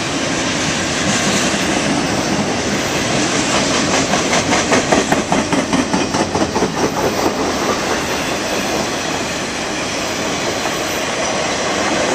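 Double-stack container train's well cars rolling past close by: a steady rumble and rush of steel wheels on rail, with a rapid, rhythmic clickety-clack of the wheels from about four to seven and a half seconds in.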